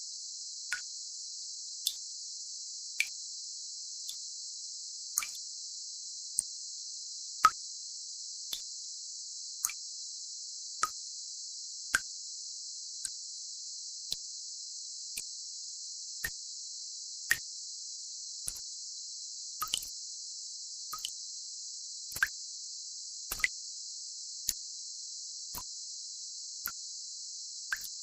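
Tinnitus-relief sound track: a steady high hiss held in a narrow upper band, with water-drop plops at varying pitch falling about once a second.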